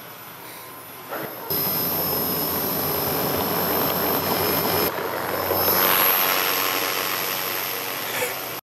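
The propeller and motor of a small propeller-driven wheeled robot running with a loud, steady whirr and a high whine as the robot drives past. The sound comes in sharply a second and a half in, is loudest about six seconds in, eases off and cuts out abruptly near the end.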